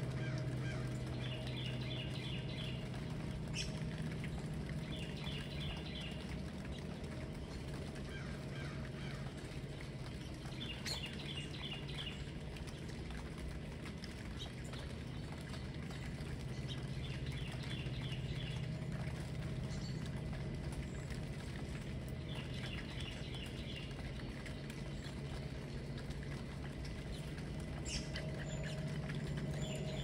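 A songbird repeating the same short, quick run of high notes about six times, a few seconds apart, over a steady low rumble.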